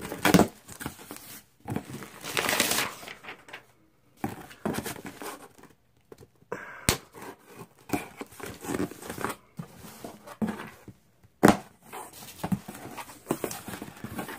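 Scissors slitting the packing tape on a cardboard shipping box, then tape tearing and the cardboard flaps being pulled open and handled, in irregular rustling bursts with two sharp clicks, one near the middle and one late.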